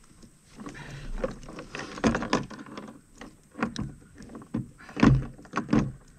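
Irregular knocks, taps and rattles against a plastic kayak hull as a freshly caught spotted bass is unhooked in the angler's lap, the loudest knock about five seconds in.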